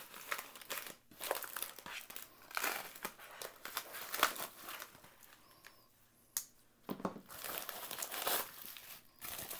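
Black plastic bubble mailer being slit open with a folding knife and unpacked, crinkling and rustling in irregular bursts, with one sharp click about six seconds in.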